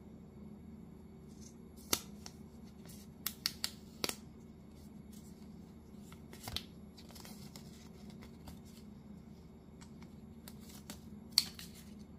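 Thin plastic protective film being peeled off an AirPods Pro charging case, with soft crinkling around the middle and several sharp clicks and taps from handling the plastic case, the loudest near the end. A faint steady hum runs underneath.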